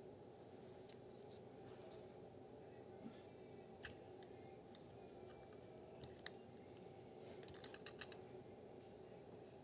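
Faint light clicks and ticks from handling an ETA G10.711 quartz watch movement as its crown stem is released with a fine pin, pulled out and pushed back in. The clicks come irregularly, mostly in the middle of the stretch, over a faint steady hum.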